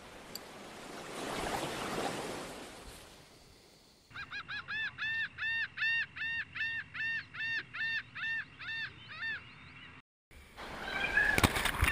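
Surf rushing and spraying over the camera, fading after a few seconds. About four seconds in, a rapid, even string of goose honks begins, roughly three a second, each rising and falling in pitch. It stops about nine seconds in, and water sound returns near the end.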